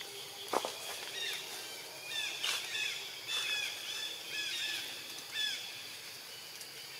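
Birds chirping: a run of short, repeated, downward-curving chirps for several seconds, starting about a second in and fading before the end, over a steady outdoor background hiss. A single soft knock comes just after the start.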